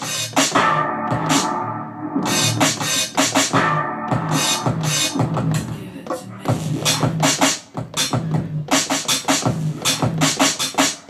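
Hip-hop style beat played from a Native Instruments Maschine Mikro: steady drum hits over a pitched bass line, with a short drop in level about eight seconds in.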